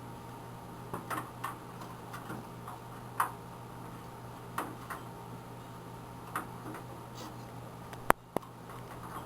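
Light plastic and metal clicks and taps of a PC video card being unlatched and worked out of its AGP slot, irregular throughout, with a couple of sharp, louder clicks near the end.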